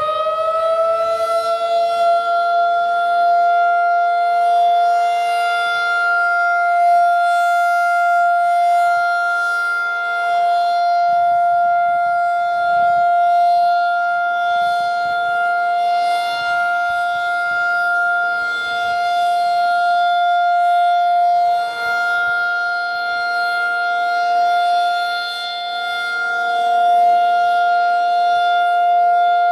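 Federal Signal 2001-SRN rotating outdoor warning siren sounding its steady alert tone. It finishes winding up to pitch about a second in, then holds one loud, steady tone that swells and fades as the rotating head turns.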